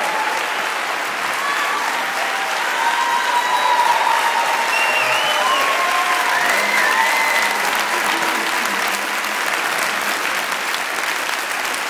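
Cinema audience giving a standing ovation: sustained, dense applause, with a few voices calling out over the clapping in the middle.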